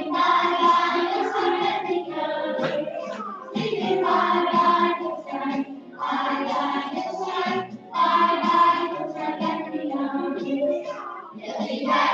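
A song with a group of children's voices singing over an accompaniment, in phrases with short breaks between them.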